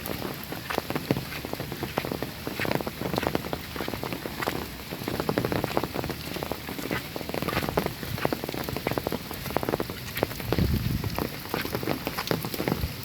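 Steady rain falling, with many separate drops and drips striking a surface close by over a continuous hiss.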